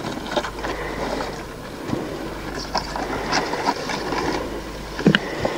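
Vehicle running over rough ground with a steady low engine drone, its body rattling and knocking irregularly.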